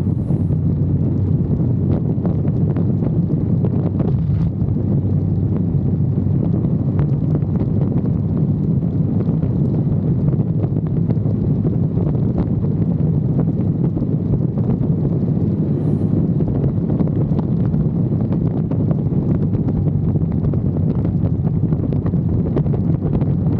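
Wind buffeting the camera microphone on a moving motorcycle, with the steady drone of the KTM 390 Adventure's single-cylinder engine underneath at an even cruising speed.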